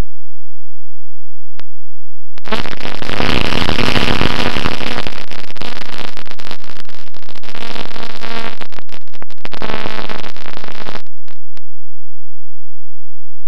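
Onboard audio from a small electric RC plane: wind rushing over the camera's microphone together with the buzz of the electric motor and propeller, a steady rough noise with a low hum in it. It starts after a single click, runs for about eight seconds and cuts off suddenly.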